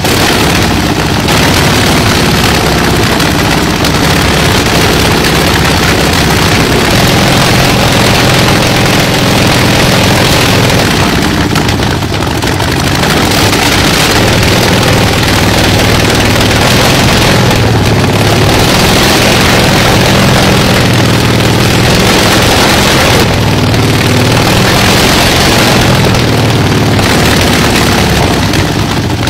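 Shvetsov ASh-62IR nine-cylinder radial aircraft engine running loudly and continuously on a test stand, its note shifting a few times. It is running again after more than 40 years without being started.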